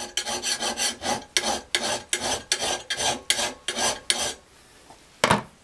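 Hand file rasping across the cutting edge of a steel lawnmower blade in quick, even strokes, about three a second, stopping about four seconds in. A single sharp knock near the end.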